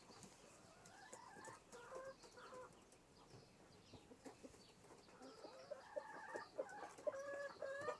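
Chickens clucking faintly: a short run of calls about a second in, then more calls over the last three seconds.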